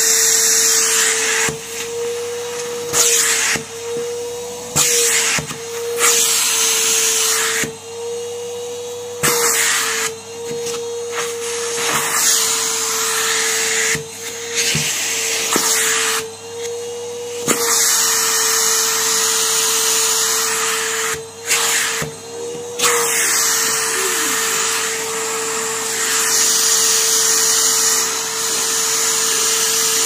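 Numatic Henry cylinder vacuum cleaner running: a steady motor whine under rushing air. The rush of suction drops and swells every second or two as the hose nozzle is worked over sweatpants fabric.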